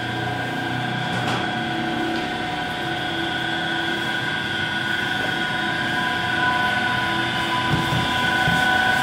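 Bakery machinery running with a steady mechanical drone and a constant high whine over a hiss, growing slightly louder near the end.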